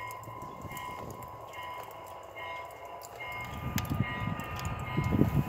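O gauge model train running toward the microphone on its track. A rumble of wheels and motor builds over the second half, with a few sharp clicks.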